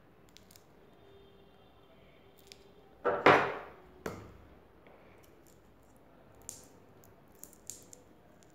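Handling noise from taking apart a 9 V battery, its small foil-wrapped cells and a pair of pliers worked by hand on a wooden table. About three seconds in comes a sharp double noise that fades over about half a second, then a knock and, later, several light clicks.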